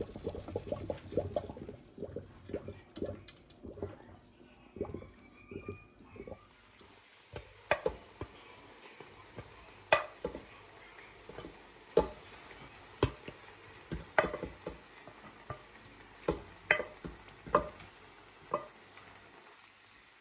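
Metal spoon knocking and scraping against kitchenware. It starts as soft, close-packed knocks, then turns into sharper separate clinks about once a second.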